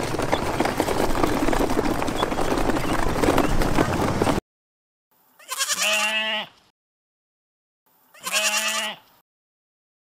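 For about four seconds a crowded crate of ducklings makes dense, noisy cheeping, which cuts off suddenly. Then a sheep bleats twice, each bleat lasting about a second.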